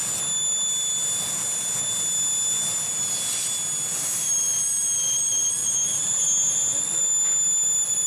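Car engine idling with a steady high-pitched whine while carburetor cleaner is sprayed in short hisses around the vacuum lines. The spray is a vacuum-leak test: a change in how the engine runs shows where the leak is. The whine drops slightly in pitch after the second spray, about four seconds in, and comes back up near the end.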